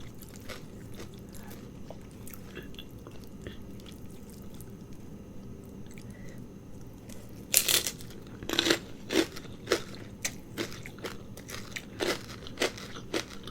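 A person chewing a mouthful of noodles and toppings with soft, quiet mouth sounds. From about seven and a half seconds in come loud, irregular crunches as something crisp is bitten and chewed.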